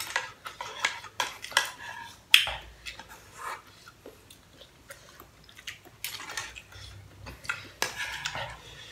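Chopsticks and a metal utensil clicking and scraping against a pink saucepan as pasta is scooped out and eaten, in many short irregular clicks. The loudest clack comes about two and a half seconds in.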